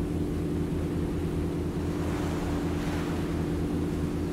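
Boat engine running at a steady low throb while under way, with the rush of its wake along the hull swelling for a moment about two seconds in.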